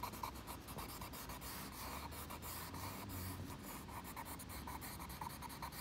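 Soft charcoal pencil scratching across drawing paper in quick, repeated strokes.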